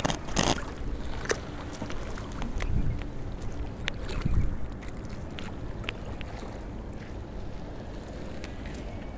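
Sea water lapping against a rocky shore, with wind buffeting the microphone in a few low surges and scattered sharp clicks.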